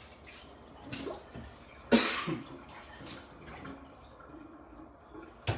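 A person coughs once, loudly and suddenly, about two seconds in, with fainter throat sounds around it.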